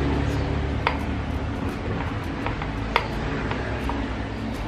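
Screwdriver tightening the mounting screws of a power amplifier's final transistors: a scattering of sharp small metallic clicks and ticks, the loudest about three seconds in, over a steady low background hum.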